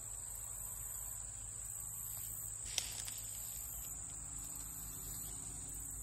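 Steady high-pitched chorus of insects, with a second, higher trill pulsing on and off above it. There is a low rumble underneath, and one sharp click a little before the middle.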